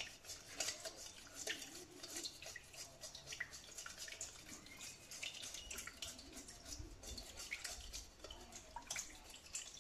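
Silicone spatula stirring a wet flour-and-water pizza dough mixture in a bowl: faint, irregular wet clicks and scrapes.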